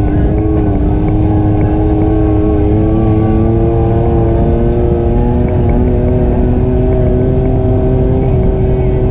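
ATV engine running under way, its pitch climbing gently over the first few seconds and then holding steady.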